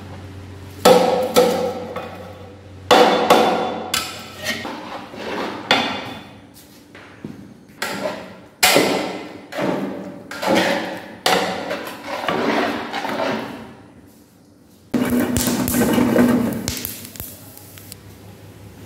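Long steel ladle stirring thick curd rice in a large aluminium pot: repeated sloshing, scraping strokes with knocks of the ladle against the pot, about one a second, with a brief lull and then one last long stroke near the end.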